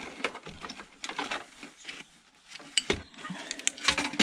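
Irregular small clicks, taps and knocks of plastic and metal monitor parts being handled and pried apart by hand, with a few sharper knocks near the end.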